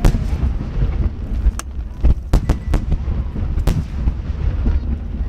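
Large 30 cm aerial firework shells (shakudama) bursting in rapid succession in a barrage: about half a dozen sharp booms over a continuous heavy low rumble of rolling echoes from other bursts.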